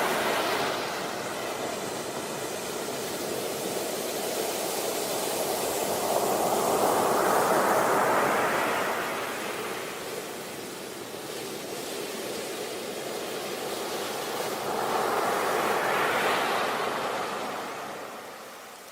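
Sea waves breaking and washing up on a shore. The surf swells and fades three times, several seconds apart.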